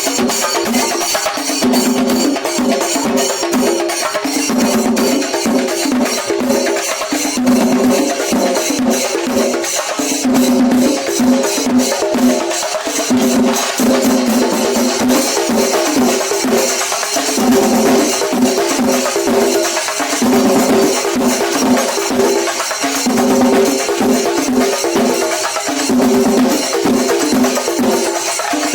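Singari melam ensemble playing a fast, continuous rhythm on chenda drums, with rapid strokes over ringing ilathalam cymbals.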